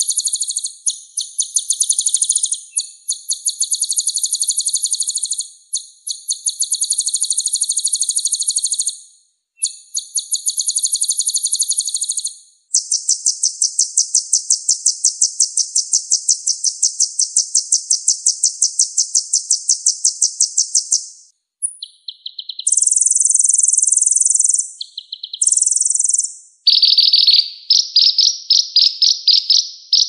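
Sunbird song from a masteran track, the recording played to caged songbirds to get them singing. It is a string of high, rapid trills: short repeated phrases at first, then one long unbroken trill of about eight seconds, then shorter separate phrases, and fast trills again near the end.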